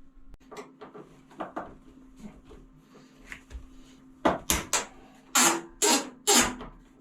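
A series of irregular knocks, clatters and scrapes, growing louder and longer from about halfway through, over a steady low hum.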